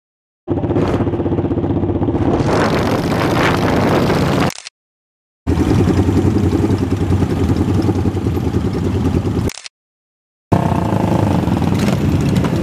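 Yamaha SR400/SR500 single-cylinder motorcycle engines running, heard in three short stretches, each cut off suddenly by a brief silence.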